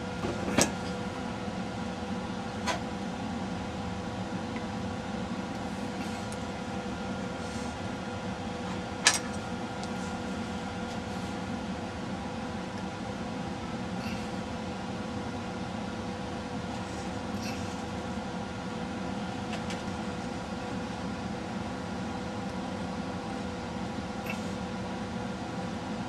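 Steady low mechanical hum with a few isolated light clicks, the sharpest about nine seconds in.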